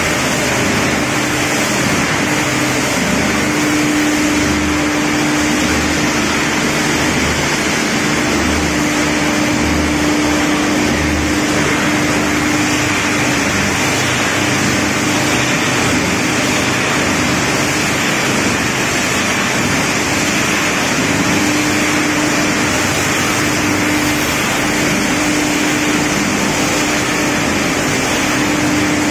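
SPC flooring crushing and milling machinery running: crusher, mill, conveyors and electric motors making a loud, even roar. A steady hum fades in and out every few seconds over it.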